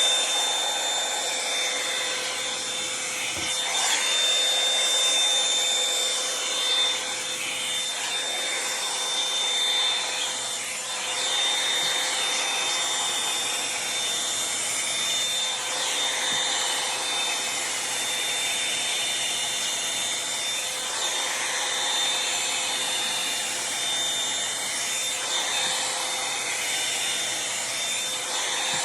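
Revlon One-Step hair dryer brush running steadily: a rush of air with a steady high motor whine, and rubbing as the brush is drawn through hair.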